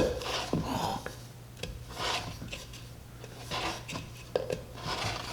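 Wooden pieces rubbing and scraping against the wooden box in several short strokes as a glued-up part is worked loose from the box it was glued in, with a sharp knock near the end.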